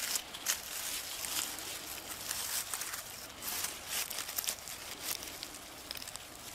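Hands pulling a clump of wild onions out of sandy soil and breaking the dirt off the roots: irregular crackling and rustling of crumbling earth, tearing roots and dry leaf litter.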